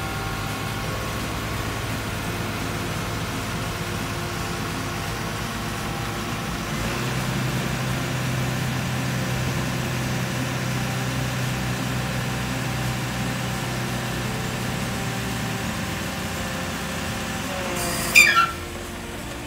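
Isuzu Forward truck's diesel engine running steadily while the hydraulic hook-lift arm is worked, its note strengthening about a third of the way in and easing again later. Near the end comes a brief, loud squeal that falls in pitch.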